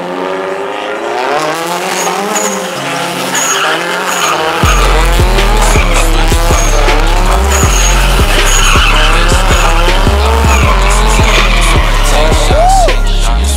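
Car spinning donuts, its engine revving and tyres squealing. About five seconds in, music with a heavy, stepping bass line and a steady beat comes in and runs over it.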